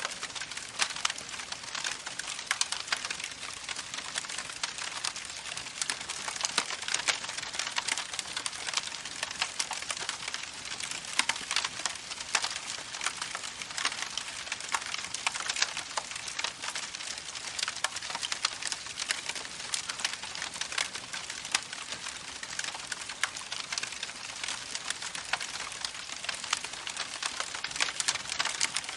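Campfire crackling with many small, irregular pops over the steady rush of a babbling creek.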